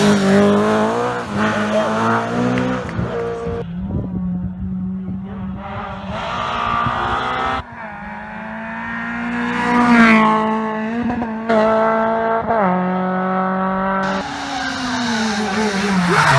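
Rally car engines revving hard as the cars accelerate, brake and change gear on a tarmac stage. The sound changes abruptly several times as one car's clip gives way to the next.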